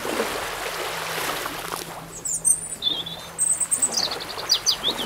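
A rush of water noise, then a small bird chirping in quick, high notes from about two seconds in, some of them dropping in pitch.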